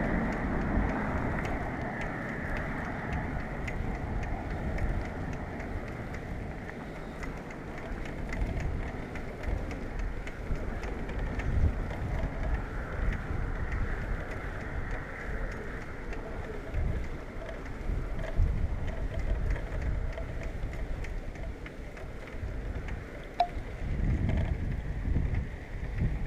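Riding noise from a camera on a moving bicycle: wind buffeting the microphone in uneven gusts over the hiss of tyres on asphalt, with scattered light clicks and rattles from the bike.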